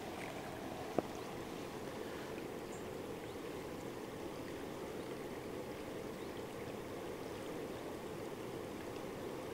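Fast-flowing river water rushing steadily, a muffled, even noise with no let-up, with one sharp click about a second in.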